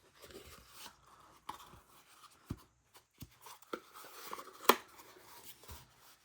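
Faint rustling and scattered small clicks from handling a pocket knife and its box, with one sharper click about four and a half seconds in.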